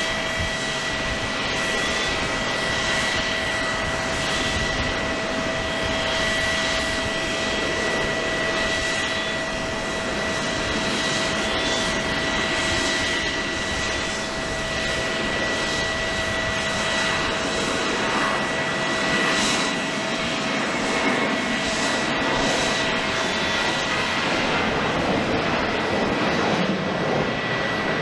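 Boeing 737-800's CFM56 jet engines running: a steady rushing noise with a high whine throughout, and a lower whine that fades out about two-thirds of the way in.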